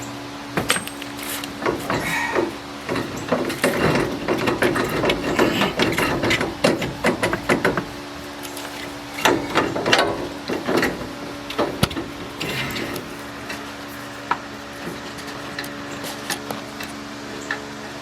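Hand tools working on the suspension: irregular metallic clicks and clanks in a busy stretch through the first half and another short burst about ten seconds in, then only scattered ticks, over a steady low hum.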